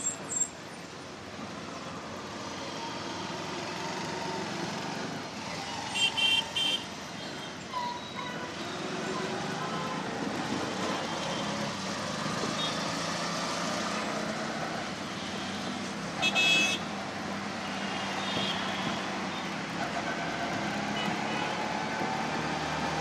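Auto-rickshaw engine running and road noise heard from inside the open rickshaw cab in city traffic, with the engine drone slowly picking up. A short vehicle horn toot sounds about six seconds in and another about sixteen seconds in.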